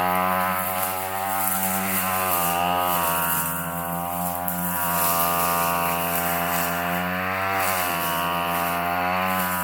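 Gas weed eater engine running near full throttle as its brush-cutting attachment clears heavy brush, its pitch dipping briefly twice as it bogs in the growth.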